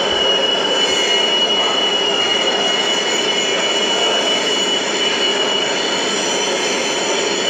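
New York City subway 2 train creeping slowly along the track, its steel wheels squealing against the rails in one steady high-pitched tone over the running noise of the train. The squeal dips slightly in pitch about two seconds in.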